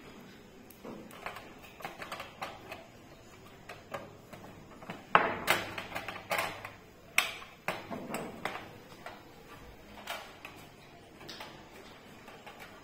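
Irregular clicks and knocks of plastic pens and a metal pencil box being handled and set in place while a rubber band is stretched over them, the loudest knock about five seconds in.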